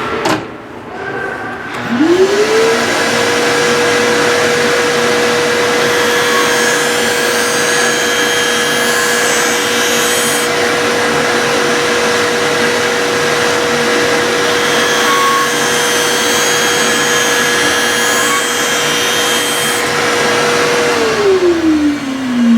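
Skate-sharpening machine's grinding-wheel motor spinning up about two seconds in, running steadily with a hum and a hiss, then winding down near the end as it is switched off, during the final passes on the blade's edge.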